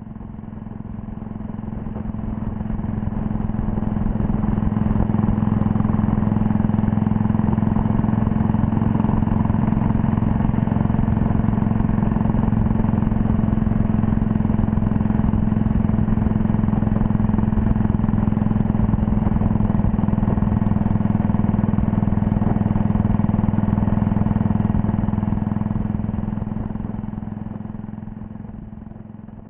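1939 Red Panther Model 40 motorcycle's single-cylinder engine running at a steady cruise under the rider, pulling well on a gradient, over a rush of wind and road noise. The sound fades up over the first few seconds and fades down near the end.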